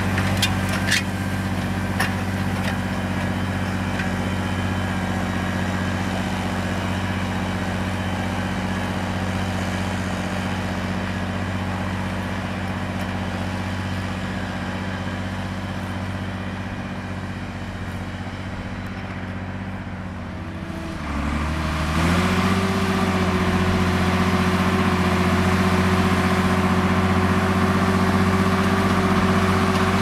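Farm tractor's diesel engine running steadily under load while pulling a disc harrow. About two-thirds of the way through, its note dips briefly and comes back, then runs louder.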